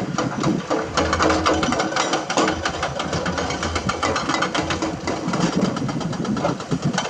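Heavy construction machine's diesel engine running, with a fast, continuous clatter of knocks and clicks over it.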